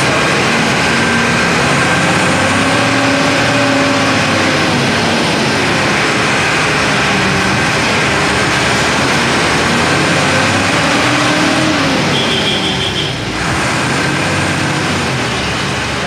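Mercedes-Benz OF 1318 bus's diesel engine running, its pitch rising and falling slowly as the revs go up and down. A short, high, pulsing beep sounds about twelve seconds in.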